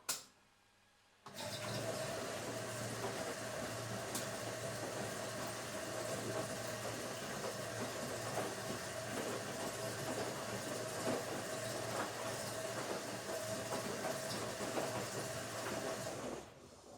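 Automatic washing machine: a sharp click, then a little over a second later a steady rushing noise with a constant hum starts abruptly, runs unchanged and fades away near the end.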